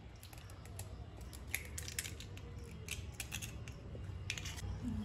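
Hen's eggs being tapped and cracked open over a plastic mixing bowl: a scattered run of small, sharp clicks and taps of shell breaking.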